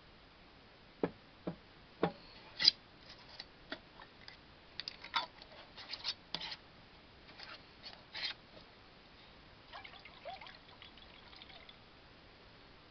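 A glass mason jar with a metal screw lid being handled and its lid twisted: a string of light clicks and knocks, the sharpest about three seconds in, then a soft crinkly rustle near the end.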